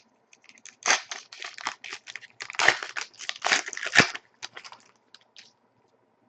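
A hockey card pack's wrapper being torn open and crinkled, crackling in a run of bursts for about three seconds, then a few light clicks and rustles as the cards come out.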